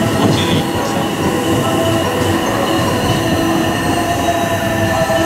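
JR West 683 series Thunderbird limited express standing at the platform, its onboard electrical equipment giving a steady hum of several held tones over constant station noise.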